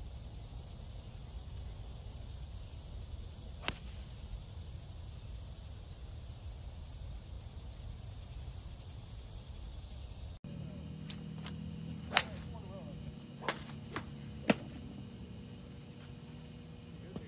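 Golf club strikes on a ball. There is one sharp crack about four seconds in, over a steady outdoor hiss and a high insect-like whine. After a cut, several more sharp cracks and knocks come over a low hum, the loudest about twelve and fourteen and a half seconds in.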